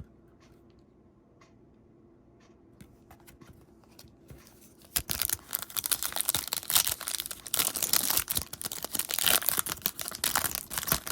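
Trading card pack's foil wrapper being torn open and crinkled, starting about halfway through after a few faint clicks, then a dense crackling that goes on to the end.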